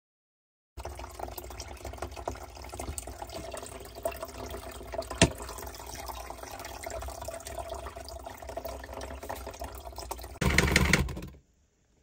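Sudsy wash water draining from a portable folding washing machine's drain spout, pouring in a steady stream into a plastic basin of water. It starts about a second in, with one sharp click about halfway through and a short, louder rush of noise near the end.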